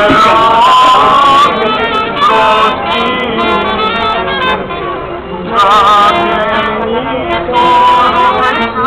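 Byzantine chant: male voices singing a slow, melismatic Orthodox hymn, the melody winding and trilling on long held notes.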